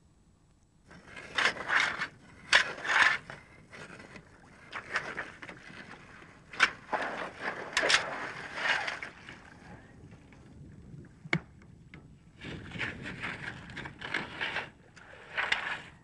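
A digging fork working through shelly gravel and mud for ragworms: irregular scraping and crunching strokes with a few sharp clicks of stone or shell, starting about a second in.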